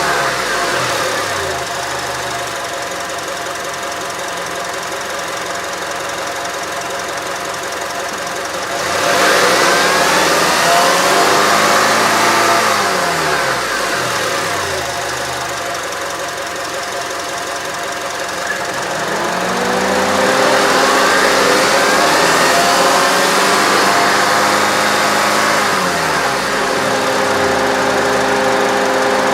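Car engine idling and being revved twice, each rev held for a few seconds before the engine drops back toward idle.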